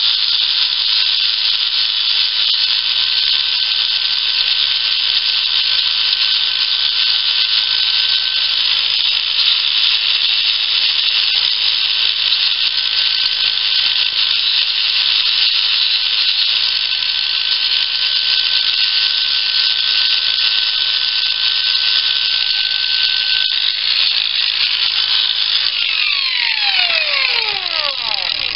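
Angle grinder with a worn flap wheel running steadily with a high whine as it sands a primed metal baseplate back toward bare metal. Near the end it is switched off and spins down, its pitch falling away.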